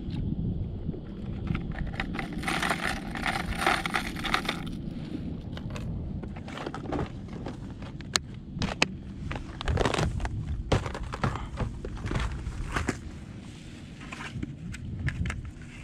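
A clear plastic tackle box of hard-body lures being handled: scattered sharp clicks and rattles, with a longer rattling scrape a few seconds in, over a steady low rumble.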